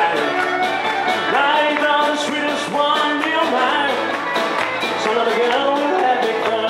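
Live country band playing a country song on fiddle, acoustic and electric guitars and drums, with a steady beat and sliding notes.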